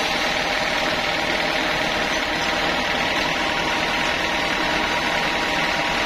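Band sawmill running steadily: an even mechanical hum and rush of noise with a faint steady whine.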